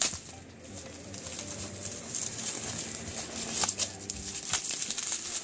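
Plastic bubble wrap crinkling and rustling as it is handled and pulled open, with scattered small crackles and a few sharper clicks.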